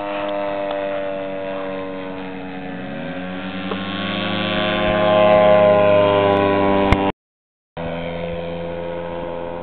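Engine of a large-scale radio-controlled biplane running, rising in pitch about three seconds in and growing louder as the plane comes low over the field and climbs away. A half-second break a little after the middle, then the engine drone again, steady.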